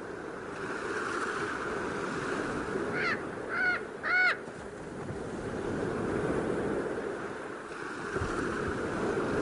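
Ocean surf breaking on a sandy beach: a steady rushing wash of waves. Three short, arched calls from a bird come quickly one after another about three to four seconds in.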